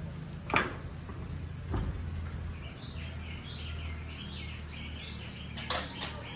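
A bird chirping in quick repeated notes, starting about two and a half seconds in, over a low steady hum. Three sharp knocks sound, near the start, about two seconds in and near the end.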